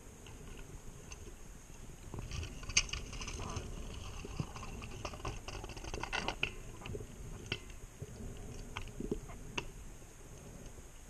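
Scuba diver's breathing and exhaled bubbles heard underwater as muffled crackling and scattered clicks, busiest from about two seconds in to about six and a half seconds.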